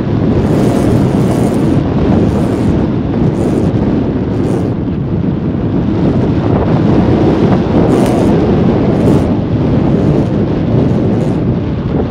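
Airflow buffeting the microphone of a phone carried on an unpowered RC combat glider in flight: a loud, steady rush of wind noise with no motor.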